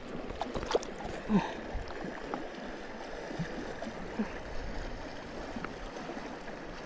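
River water flowing in a steady rush, with a few faint small splashes.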